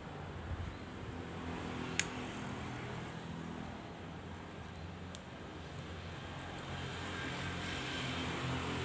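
A steady low mechanical hum, with a single sharp click about two seconds in.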